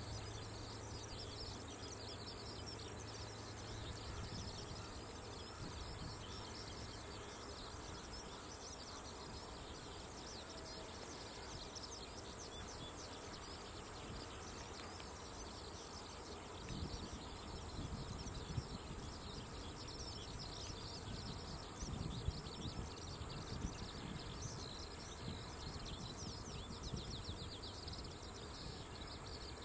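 Insects chirping and trilling steadily in grassland, with a steady high-pitched hiss above them. A few low rumbles come and go a little past halfway.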